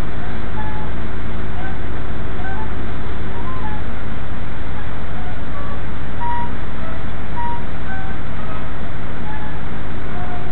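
Passenger train running, heard from inside the carriage as a loud, steady rumble, with faint short high tones scattered over it.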